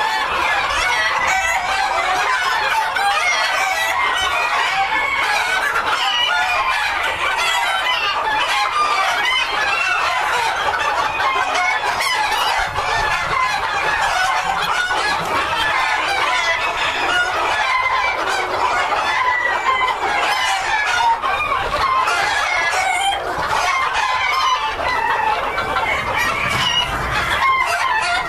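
A large flock of White Silkie bantam chickens clucking and calling all at once, many overlapping voices making a steady, continuous din.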